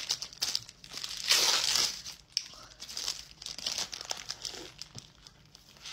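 Paper sandwich wrapper crinkling and rustling as it is peeled back and handled, with a loud burst of crinkling about a second in, then quieter scattered crackles as she bites into the sandwich.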